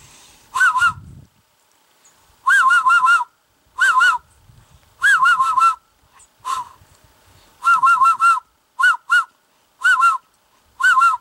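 Goose call made by a man blowing through cupped hands: about nine short bursts of quick honking notes, each note rising and falling in pitch, with brief pauses between bursts.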